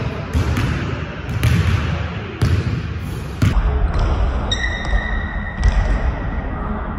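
Basketball dribbled on a hardwood court, its bounces landing about once a second, with a sneaker squeaking on the floor about halfway through.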